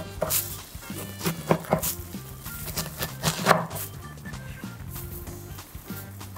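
A large kitchen knife chopping cabbage kimchi on a wooden cutting board: irregular wet chops, the loudest about three and a half seconds in, over background music.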